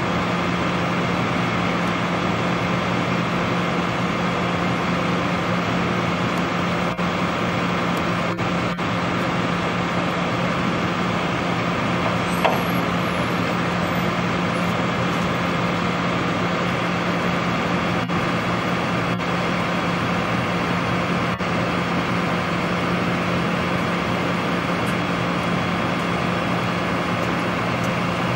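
Flatbed tow truck's engine running steadily at idle, a constant low hum, with one brief click about halfway through.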